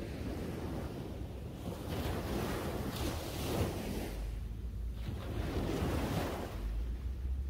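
Small sea waves breaking and washing up a sandy beach, the hiss of the wash swelling and fading every second or two. Wind rumbles on the microphone underneath, stronger near the end.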